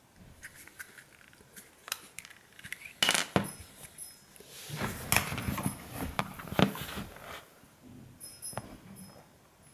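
Handling noise from a small glass nasal spray bottle with a plastic pump being turned over in the fingers: scattered light clicks and taps, a couple of louder clicks about three seconds in, then a few seconds of rubbing and scraping.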